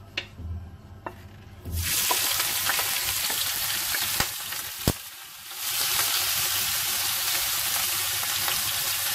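Chopped onion hits hot oil in a frying pan and starts sizzling suddenly about two seconds in, after a few light taps. It keeps up a steady loud sizzle, easing off briefly in the middle, as it is stirred with a wooden spoon.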